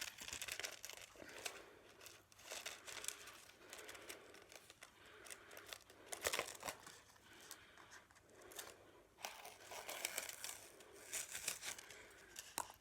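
Paper and packaging rustling and crinkling as items are handled and packed away, in irregular bursts with a few small clicks and knocks.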